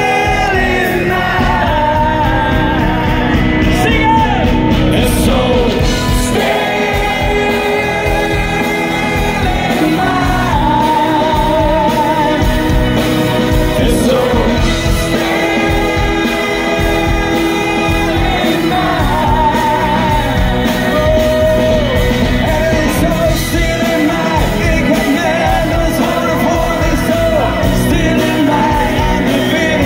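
Live pop-rock band playing loud: electric guitars and bass under a male lead vocal singing a Dutch-language song with held, wavering notes.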